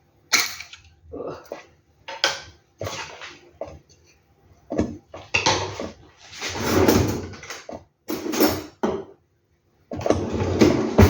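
Kitchen handling sounds: an irregular run of short knocks, clinks and scrapes of pots, dishes and utensils, with a longer rushing noise in the middle.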